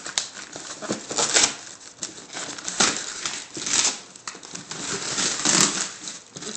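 Cardboard box and its packing being handled and pulled open by hand: irregular crinkling, rustling and scraping.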